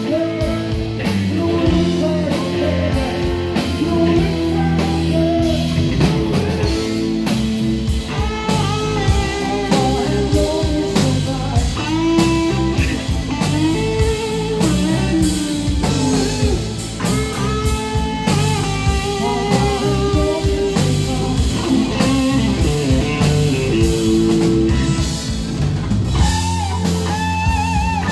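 Live blues-rock band playing: electric guitars, bass and drums, with a bending, wavering lead line over the band through most of it.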